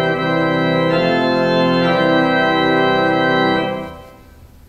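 Church pipe organ playing full, sustained chords on a registration for accompanying an average congregational hymn, changing chord a couple of times. The chord is released a little under four seconds in and dies away in the room.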